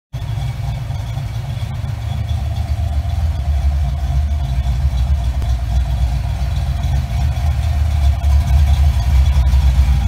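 A 1988 Ford Mustang GT's 302 cubic-inch (5.0 L) small-block V8 idling with a steady, deep rumble that slowly grows louder.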